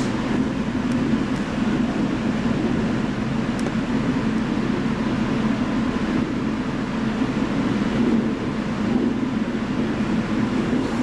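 Electric train running at a steady pace, a continuous rumble of wheels on rail and running gear heard from inside the front car.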